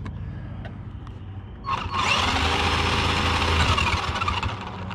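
Hosim RC truck's electric motor and drivetrain, heard on board. A low hum with a few small ticks runs until, just under two seconds in, the motor goes to throttle and becomes a loud whine whose pitch rises and falls. It eases off shortly before the end.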